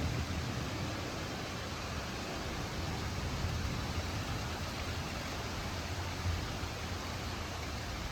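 Steady rain falling during a thunderstorm, an even hiss, with the tail of a low thunder rumble fading out just at the start.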